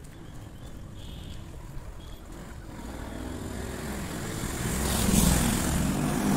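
A motor vehicle driving past: its engine and road noise grow louder to a peak about five seconds in, then begin to fade.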